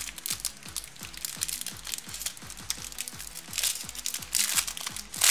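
Foil wrapper of a trading-card pack crinkling as it is handled and pulled open, in bursts that are loudest near the end, over background music with a steady electronic beat.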